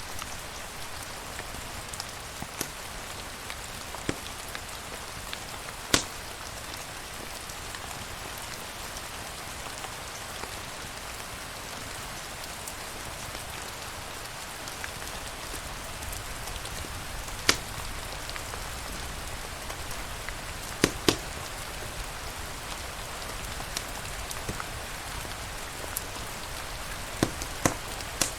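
Steady rain falling, an even hiss. A handful of sharp pops stand out through it, two of them in quick succession past the middle.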